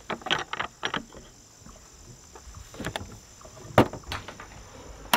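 Metal clicks and clanks of a trailer door's lock and locking-bar latch being unlocked and swung open, with a louder clank near the end.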